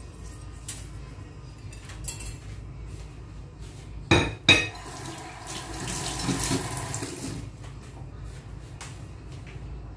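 Two sharp clatters of dishes being handled at a kitchen sink, then a tap running for about two seconds.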